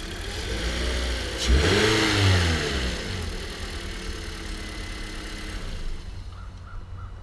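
Toyota Corolla engine idling, then revving up and back down twice as the car is brought down off its stands, with a heavy thump about a second and a half in.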